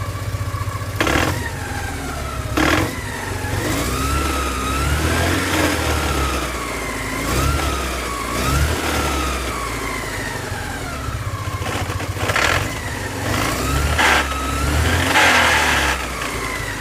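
1987 Porsche 944's four-cylinder engine running with a wavering, grinding whine over its rumble and a few short, sharp noises, a grinding that the owner suspects comes from the clutch.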